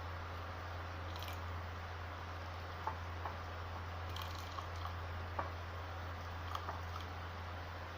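Steady hiss with a low hum, and a scattered handful of small soft pops and clicks through the middle, with a wet, liquid character.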